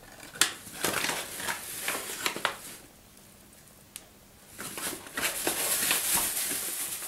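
Metal spoon scooping flour and scraping and clicking against a glass mixing bowl, in two bouts with a single click between them. The second bout is a longer, denser rustle, a plastic bag being handled.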